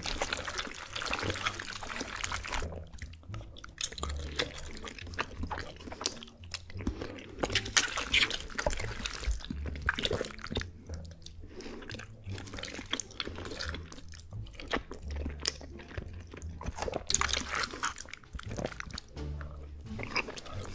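Close-miked eating of saucy shell macaroni and cheese: a fork working shells out of the dish, with chewing in irregular bursts, over background music with a low bass line.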